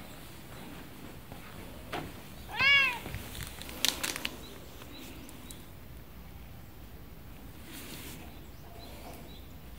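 A stray tabby cat gives one loud meow, rising then falling in pitch, about three seconds in: a hungry cat begging for food. A few short clicks follow about a second later.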